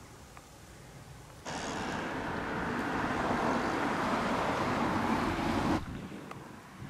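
Road noise from a car driving on the road beside the stream: a steady rush of tyres that starts suddenly about a second and a half in, builds slightly and cuts off abruptly near the end. Before it, only faint outdoor background.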